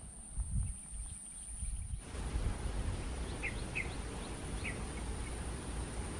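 Outdoor ambience with a steady high insect drone and a low rumble; about two seconds in the background hiss gets louder, and a bird gives four or five short chirps in the second half.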